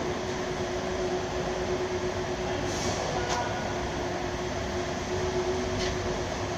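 Steady hum and rushing noise of running workshop machinery, with a constant mid-pitched tone and a couple of faint clicks about three seconds in.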